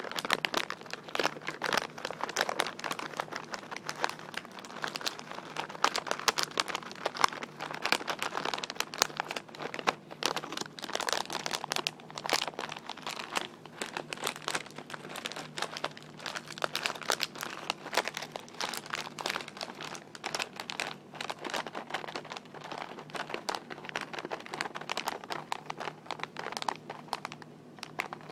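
Fingers crinkling and tapping on a crinkly material, a dense, irregular run of fast crackles and taps.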